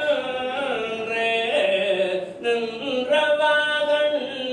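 A male Hindu priest chanting a devotional hymn into a microphone. It is a slow melodic line of long held notes that step up and down in pitch, heard over a PA.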